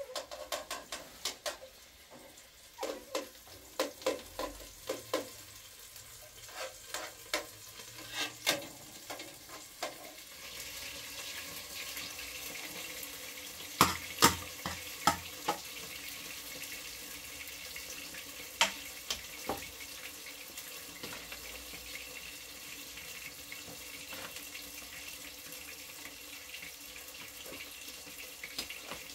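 Metal cooking utensils clinking and scraping against a frying pan: a quick run of sharp clinks in the first ten seconds, a louder cluster about fourteen seconds in as sauce is scraped out of the pan onto pasta, and a few more later. From about ten seconds in a steady hiss runs underneath.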